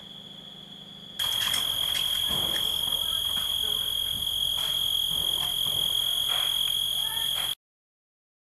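Night insects chirring in one steady high-pitched tone, which gets louder about a second in, with faint scattered clicks and knocks over it; the sound cuts off abruptly near the end.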